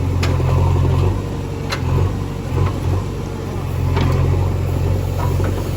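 JCB 3DX backhoe loader's diesel engine running under working load, its note swelling and easing, with a few sharp knocks over it.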